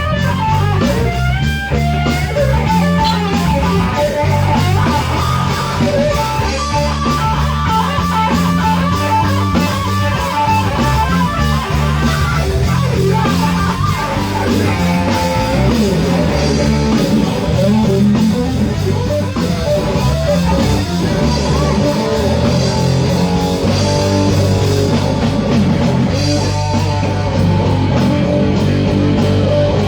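A live rock band playing: electric guitar lead lines with bent notes over bass guitar and a drum kit.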